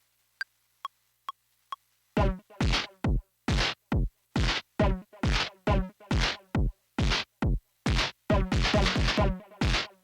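Arturia MS-20 V, a software emulation of the Korg MS-20 synthesizer, playing a percussive patch. Four short, faint, high ticks come first, then from about two seconds in a rhythmic run of loud, drum-machine-like hits, each sweeping down in pitch.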